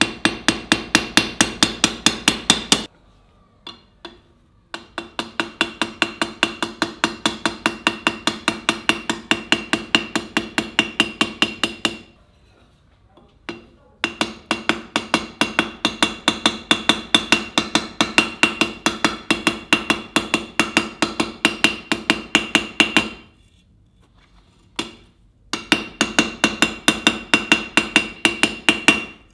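Rapid, even hammer blows on steel at an anvil, about five a second, each with a ringing metallic tone. They come in four runs, broken by short pauses that hold only a few single strikes.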